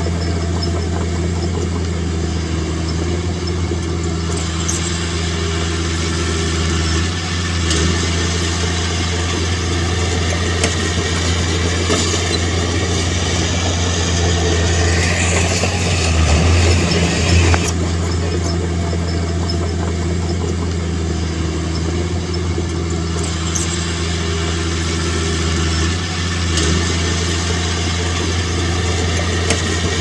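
Diesel engine of heavy earth-moving machinery running steadily at a low, even pitch, briefly louder with a rising higher tone about halfway through.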